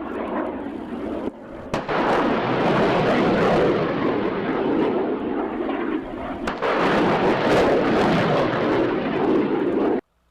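Rocket motors firing: a loud, sustained rushing noise in several stretches, joined by abrupt cuts, stopping suddenly near the end.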